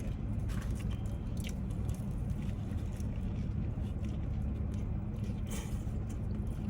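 Close-up chewing and biting of a saucy grinder sandwich, with soft wet mouth sounds and small clicks, over a steady low hum.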